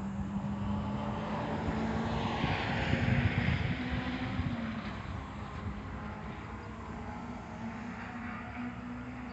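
Nissan K11 March's engine running at a steady pitch while driving, with wind and road noise that swells a few seconds in. The engine note drops slightly about halfway through.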